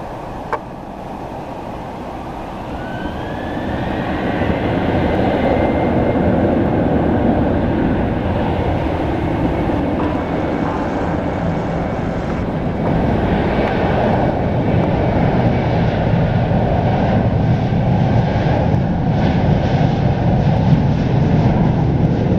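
Boeing 737-800's CFM56-7B turbofan engines spooling up to takeoff thrust. A fan whine rises in pitch over the first few seconds as the sound grows louder, then settles into a steady loud roar as the jet accelerates down the runway. There is a brief click about half a second in.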